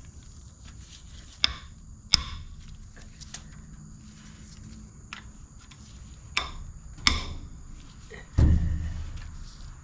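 A few sharp metal clanks and knocks, then one heavier thump near the end with a short ringing decay: tools and engine parts being handled while an engine is stripped down.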